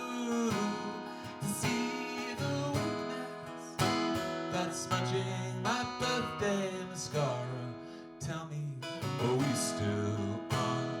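Band music with strummed acoustic guitar in an instrumental passage of a song, without singing.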